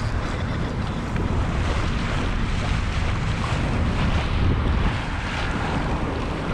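Wind buffeting the microphone over water sloshing and splashing along the hull of a moving kayak, a steady rushing noise.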